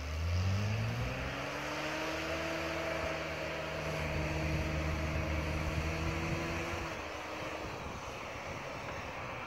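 Off-road 4x4's engine revving up over the first second or so and held at high revs under load, then falling away about seven seconds in, with a hiss of noise throughout.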